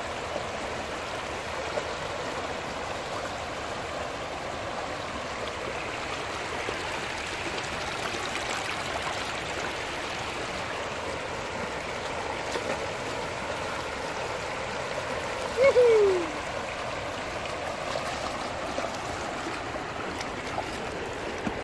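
Muddy rainwater runoff rushing steadily over rocks in a shallow riverbed. About three quarters of the way through, one short, loud call glides down in pitch.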